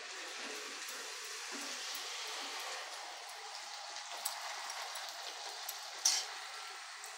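Golgappa puris sizzling steadily in hot oil in a kadhai as they puff up, with small crackles and one sharp click about six seconds in.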